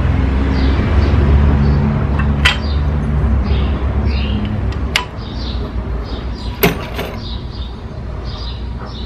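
A low engine-like rumble that fades out about four and a half seconds in, three sharp clicks of hand tools on the cylinder head, and birds chirping throughout.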